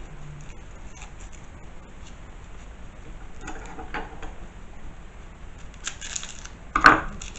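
Dry papery garlic skin crackling and rustling in short bursts as a clove is pulled off a whole head of garlic by hand. A single sharp knock, the loudest sound, comes near the end.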